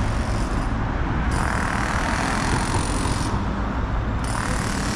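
City road traffic: cars and vans passing on a multi-lane street, with a steady engine rumble and tyre hiss that swells twice as vehicles go by.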